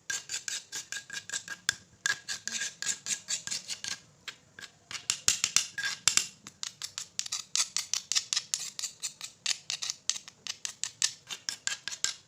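A utensil clinks rapidly against a small bowl as the spice scrub paste is stirred and mixed, about five light clicks a second with a faint ringing tone between them. There are short pauses about two seconds in and again around four seconds in.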